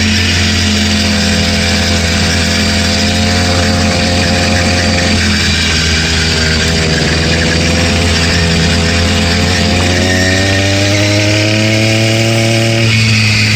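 Stock 80cc two-stroke motorized-bicycle kit engine running under way, its pitch easing down around the middle and rising again from about ten seconds in as it speeds up. The engine knocks out of the box, which the owner takes for rod knock.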